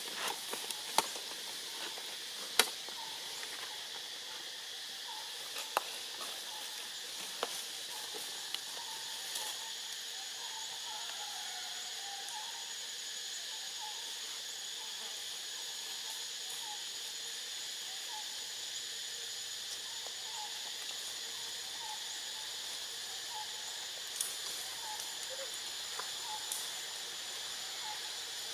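Steady high-pitched insect chorus, with a few sharp clicks and rustles in dry leaf litter during the first ten seconds and faint short chirps through the rest.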